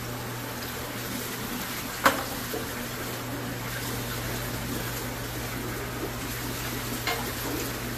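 Steady water hiss and bubbling from aquarium filtration and an air stone, over a steady low hum. A single sharp knock about two seconds in.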